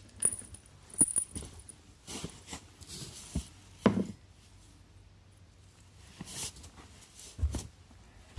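Scattered light taps, clicks and knocks with short rustling swishes between them, and a firmer thump about four seconds in.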